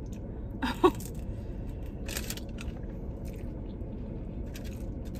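Close-miked eating sounds of chicken wings and fries being chewed, with a short crunchy burst just after two seconds and small wet mouth clicks later, over a low steady hum. A brief voiced 'mm'-like sound comes about a second in.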